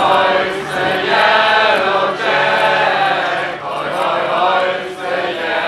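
Many voices singing a chant-like chorus together, in phrases of about a second with held notes.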